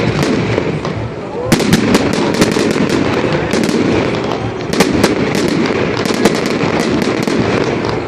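Fireworks display crackling with many rapid, sharp pops, over a steady murmur of crowd voices.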